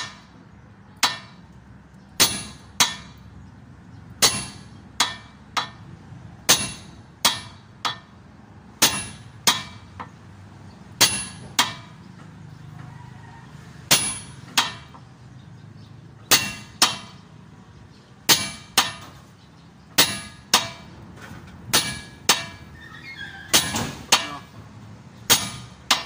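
Sledgehammer repeatedly striking a steel drift set on top of a truck king pin, driving the king pin out of the steering knuckle. Sharp metallic clangs with short ringing, often in pairs, about one to two blows a second.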